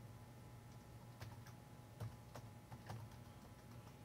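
Faint, scattered keystrokes on a Toshiba laptop keyboard as a Windows login password is typed in again, about eight uneven clicks over a low steady hum.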